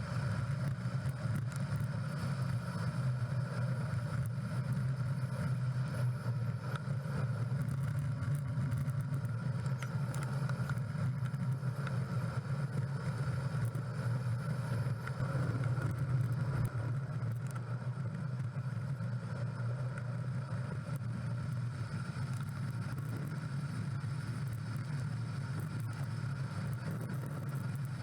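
Steady noise of riding a road bike: a constant low hum with a rushing wash of wind and road noise over it, unbroken throughout.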